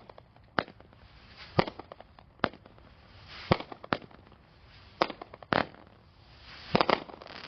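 Magnus Fireworks 'Midnight Run' 200-gram consumer cake firing: a string of about ten sharp bangs at uneven intervals of roughly half a second to a second, some with a rising hiss leading into the bang. These are the cake's comet shots going up and breaking into peonies.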